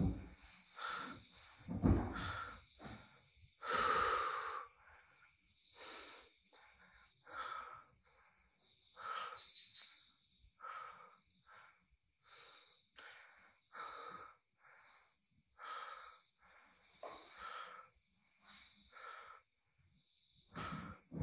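A person breathing heavily and wheezily, one rasping breath every second or so. The breaths are loudest in the first few seconds and grow fainter after that.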